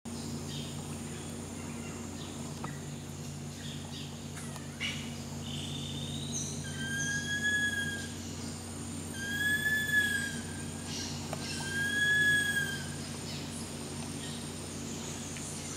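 Long-billed woodcreeper singing: three long, slightly arched whistles, each over a second long and a couple of seconds apart, starting about seven seconds in, with a shorter rising note just before them. A steady high insect drone and a low hum run underneath.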